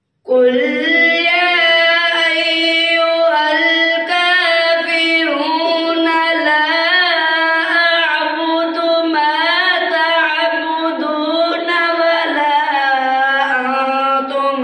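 A boy reciting the Quran in the melodic tilawat style, a single long drawn-out phrase with held notes and ornamented pitch turns, sung into a microphone. It begins sharply just after the start.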